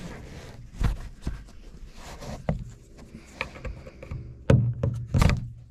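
Plastic trim tool prying at the edge of a car's plastic dome light lens: scattered clicks and scrapes of plastic on plastic, with two louder knocks near the end.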